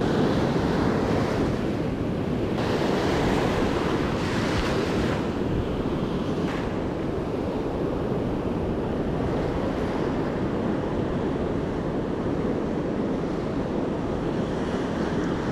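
Ocean surf breaking and washing up the beach in a steady rush, with wind buffeting the microphone. A wave swells louder and brighter a few seconds in.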